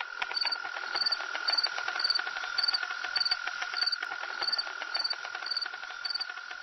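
Crickets chirping in regular pulses just under twice a second, over a steady insect drone with scattered faint clicks.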